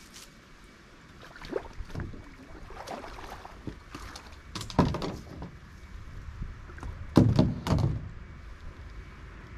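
Irregular hollow knocks and thumps of a paddle and gear against a plastic sit-on-top kayak hull as it is handled at the water's edge. The loudest knock comes about five seconds in and a cluster follows just past seven seconds, over the low rush of the river.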